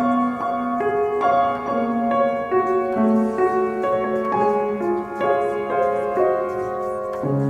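Piano music in a slow, classical style: a melody moving note by note over held chords, with a new chord struck low near the end.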